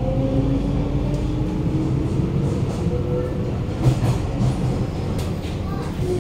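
Interior of a Kawasaki–CRRC Sifang C151A metro car accelerating away from a station: the traction motor's echoey whine climbs in pitch for the first two or three seconds, over a steady rumble of wheels on rail. A few clicks and knocks from the running gear follow around four to five seconds in.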